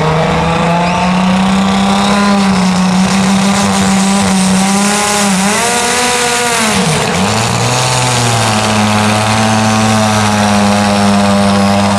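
Gasoline-powered pro stock pulling tractor's engine running loud and high-revving, its pitch dropping sharply and climbing back twice, about five and seven seconds in.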